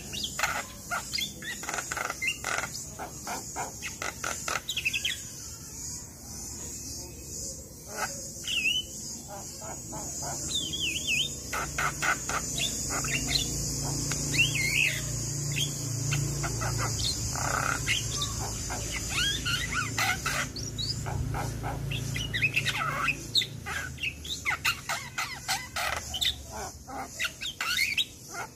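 Javan myna (jalak kebo) singing: a rapid, varied run of clicks, chirps and short whistles, over a steady high hiss.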